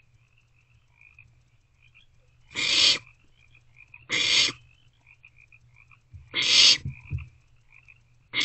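Barn owl owlets giving their hissing begging call: four harsh hisses of about half a second each, one every second and a half to two seconds.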